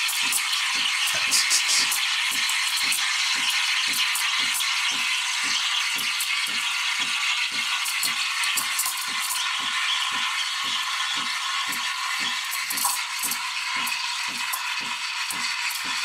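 Milk being stretched with the DeLonghi Magnifica ESAM 4200's steam wand: a steady steam hiss with an intermittent ripping-paper sound as the wand tip sits just at the milk's surface, drawing in air. Underneath runs a rhythmic pulsing, about two and a half times a second.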